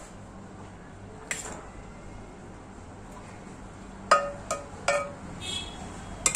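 Steel spoon clinking against a cooking pot as half-boiled rice is spread in it: a knock about a second in, three quick ringing clinks a little past the middle, and one more near the end.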